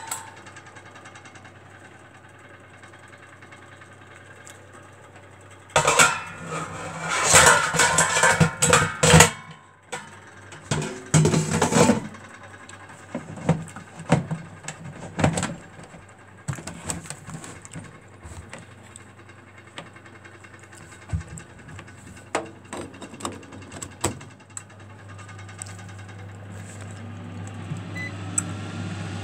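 BIYI AF-25A air fryer's basket and drawer clattering loudly as they are handled and fitted together, followed by scattered clicks and knocks as the drawer goes back in. Near the end the air fryer's fan starts up with a low steady hum that grows louder.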